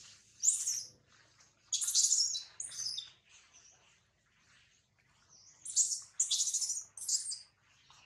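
Newborn macaque's shrill, bird-like squeaking calls for its mother. They come in short high cries, one cluster around the first two seconds and another about six seconds in.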